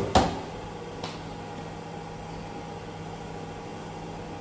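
A sharp knock as the bean cooling tray of a Skywalker coffee roaster is pushed shut, and a lighter click about a second later. Under it the roaster's fan hums steadily, cooling the freshly roasted beans.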